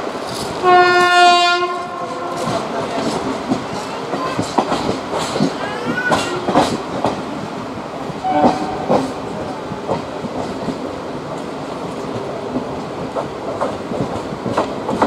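Train horn sounding one loud blast about half a second in, with a weaker short toot a little past the middle. Underneath is the steady rumble and clickety-clack of a moving passenger train's wheels over the rail joints, heard from an open coach door.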